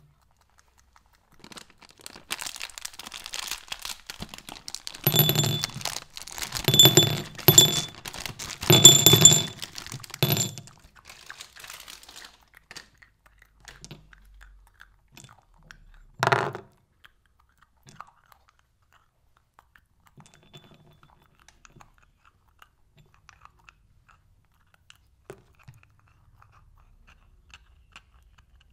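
A candy packet crinkling and M&M's candies clattering into a ceramic bowl in several short pours. Then scattered small clicks of the candies being handled, with one sharper clack about halfway through.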